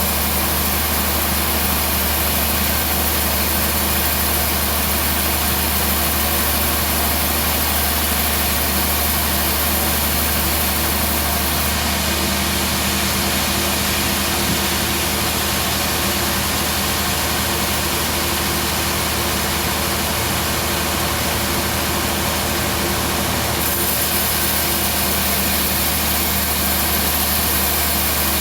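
Bandsaw mill running steadily: a constant, unbroken mechanical drone with a steady hum.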